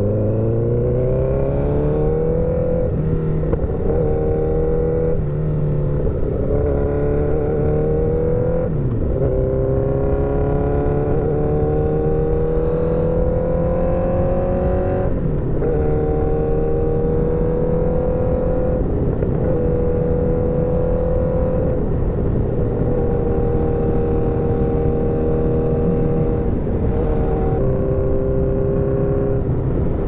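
Motorcycle engine pulling through the gears. Its note climbs and then drops at each shift, about every few seconds at first, and in the second half it settles to a steady cruise with a few brief dips.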